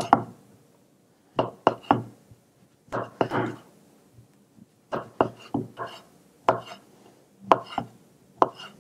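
Kitchen knife slicing and dicing roast chicken breast on a wooden cutting board: short runs of two or three sharp knocks of the blade on the wood, with brief pauses between them.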